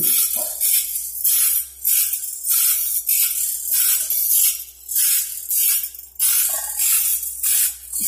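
Automatic band-saw blade sharpening machines grinding the teeth of band-saw blades. Each stroke of the abrasive wheel across a tooth gives a hissing scrape, and the strokes repeat about twice a second, slightly uneven where several machines overlap.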